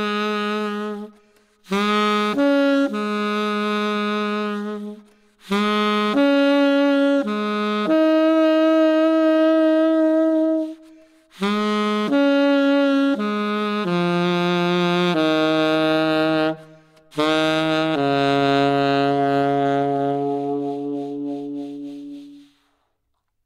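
Unaccompanied tenor saxophone playing long held notes in short phrases separated by brief breaths, moving lower in pitch towards the end; the last, lowest note fades away near the end.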